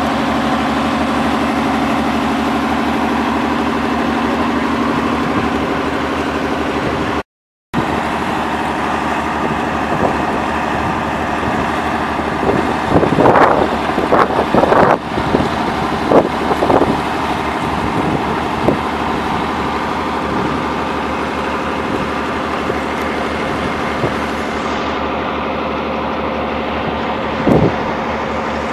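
A tractor engine running steadily under load while it drives a sawmill by a flat belt. A run of sharp knocks and clatters comes about halfway through.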